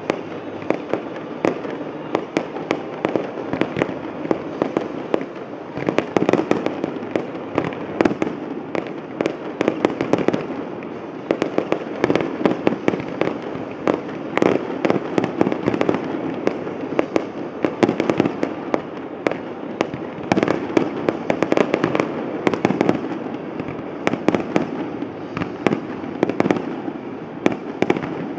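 Aerial fireworks going off in a continuous barrage of many overlapping bangs and crackles, with no let-up.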